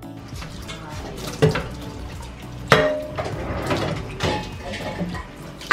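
Ceramic plates and cutlery clinking and clattering in a kitchen sink while dishes are washed, with tap water running over them. The loudest clatters come about one and a half and nearly three seconds in.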